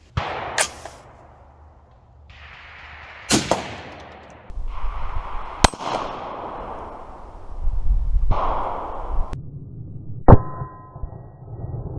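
AR-15 rifle with a 20-inch barrel firing 40-grain .223/5.56 rounds at a steel target: about four sharp shots a few seconds apart, the last one followed by the steel plate ringing.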